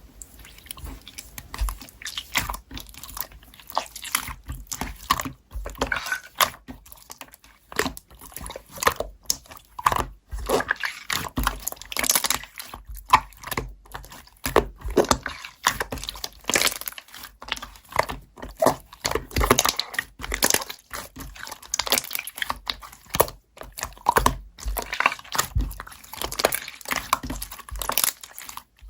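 Slime (액괴) being squeezed, folded and poked by hand, making dense, irregular sticky clicks, pops and crackles.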